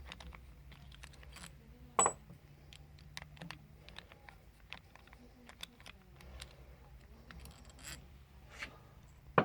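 Small metallic clicks and clinks from a tool and loose bolts as the screws are taken out of the 1500 PSI misting pump's head, with a sharper clink about two seconds in and another near the end.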